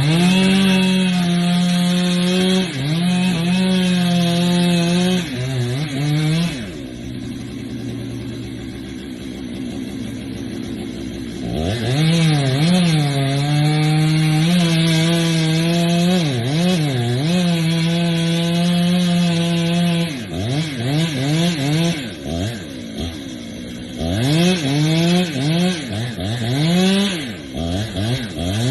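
Two-stroke chainsaw cutting through a tree at full throttle, dropping to idle for about five seconds, then back to full throttle. Near the end the engine is revved up and down in short blips.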